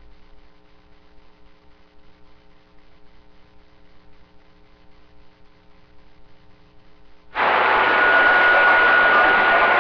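Faint steady electrical hum from a CB radio setup, then about seven seconds in a loud rush of radio static with a steady whistle switches on abruptly as a transmission opens the receiver before anyone speaks.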